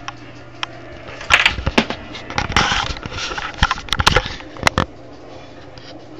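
A deck of playing cards handled on a table: a spread swept together and spread out again, with quick clicks and snaps of the cards and a short rustling slide about halfway through.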